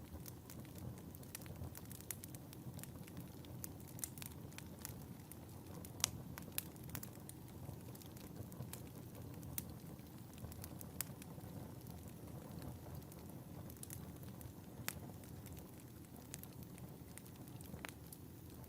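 Wood fire burning in a fireplace: a soft steady low rumble of flames with irregular sharp crackles and pops, one louder pop about six seconds in.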